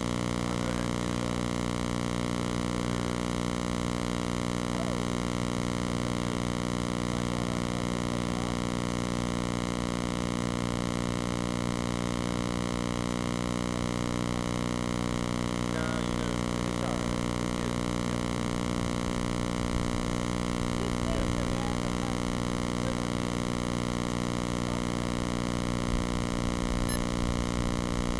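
Steady, unchanging hum made of many stacked tones, with faint distant voices here and there.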